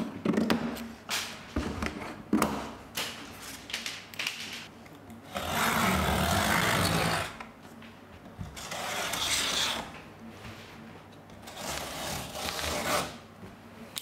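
A large cardboard shipping box being opened by hand: its plastic strapping cut and pulled off, with cardboard scraping and rubbing and a cutter working at the tape. The loudest part is a long scrape of about two seconds around five seconds in.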